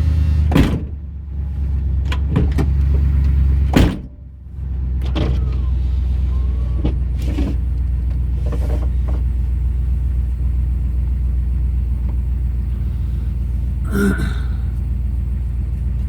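1989 Dodge Ramcharger heard from inside the cab while driving, with a steady low engine and road rumble. There are a couple of sharp knocks early on, each followed by a brief dip in the rumble, and a short pitched chirp about 14 seconds in.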